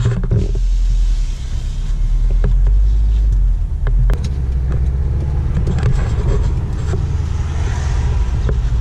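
Inside the cabin of a Subaru Impreza WRX STi as it is driven: its turbocharged flat-four engine runs steadily with road noise, with a click and a change in the engine note about four seconds in.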